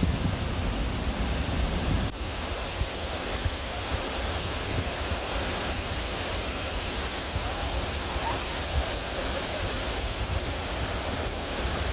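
Steady rushing roar of a waterfall, with wind buffeting the microphone.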